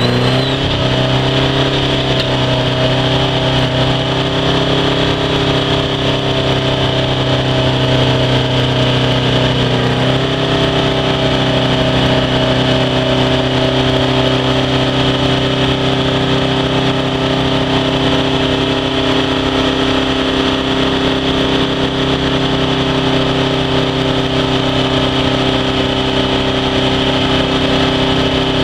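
Engine of a tracked wheel trencher running steadily under load, its note shifting slightly about ten seconds in.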